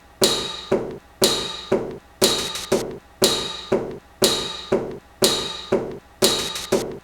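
Sharp knocks repeating about twice a second in a steady rhythm, each ringing out briefly.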